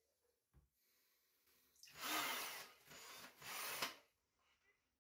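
A Ryobi cordless drill turning a 3D-printed impeller pump held in a tub of water, run in two short bursts about two seconds in, with water churning and splashing. The drill spins at no more than 1600 RPM, too slow for the pump to work well.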